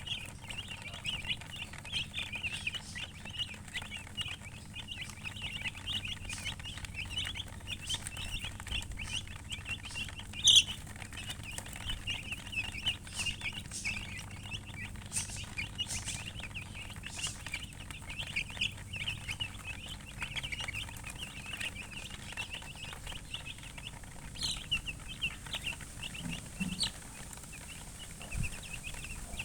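A brood of baby chicks peeping continuously, a dense chorus of short high chirps, with one louder peep about ten seconds in.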